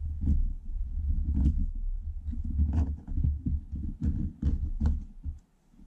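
Knife point pressed and twisted into an aluminium drink-can tab on a wooden cutting board, cutting an eyelet: irregular low thuds and knocks with a few sharp clicks and scrapes.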